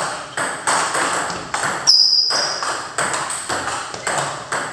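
Table tennis balls clicking off paddles and table tops in rallies: quick, hard taps, several a second and unevenly spaced. A brief, loud, high squeak comes about two seconds in.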